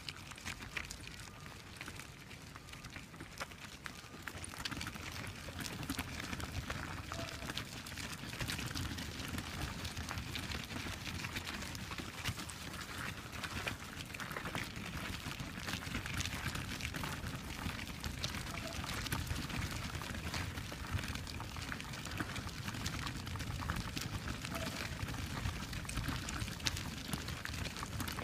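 Footsteps crunching on a gravel path, an uneven stream of small crunches that gets louder about four seconds in.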